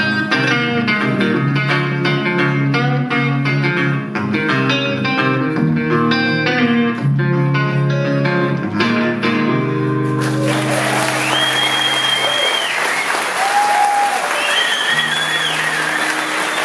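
Solo acoustic-electric guitar picking a quick run of notes to close the song. About ten seconds in the playing stops and the audience breaks into applause and cheering, with whistles.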